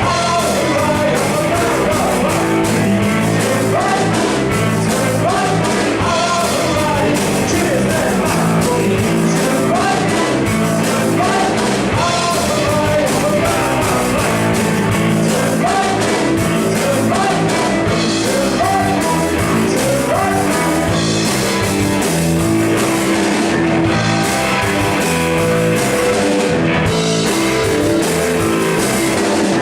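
Live punk rock band playing loud, with distorted electric guitars, bass, drum kit and a sung lead vocal.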